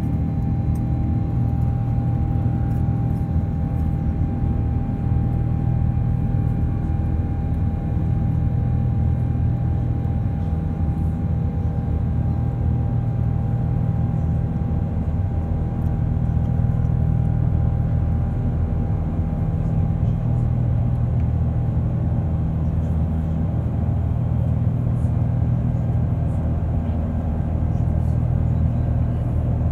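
Cabin noise of an Airbus A330-900neo in its climb after takeoff: the Rolls-Royce Trent 7000 turbofans running steadily, heard as a low rumble with a faint steady tone above it that fades about halfway through.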